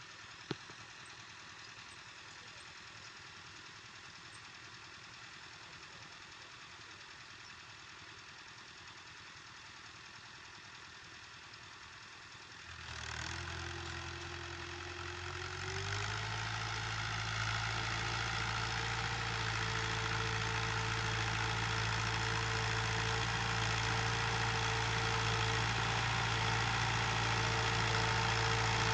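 Fiat 640 tractor's diesel engine working under load, pulling a disc harrow. It is faint at first, then about halfway through it comes up sharply and rises in pitch, and runs steadily, slowly growing louder toward the end.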